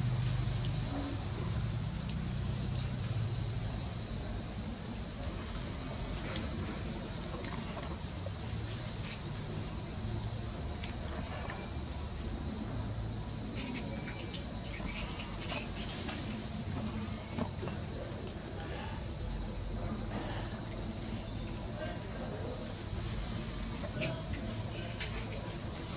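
Steady high-pitched drone of a chorus of insects.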